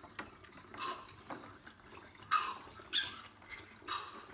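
Baby rhinos drinking from a feeding bottle: short noisy sucking bursts about once a second, with a few brief squeaks.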